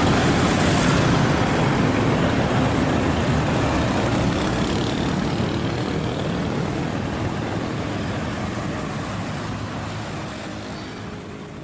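Busy road traffic, mostly motorcycles with some cars: a steady, dense run of engines and tyre noise, slowly fading out.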